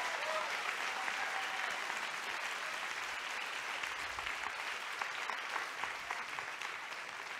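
Large lecture-hall audience applauding, a dense, steady clapping that eases off slightly toward the end.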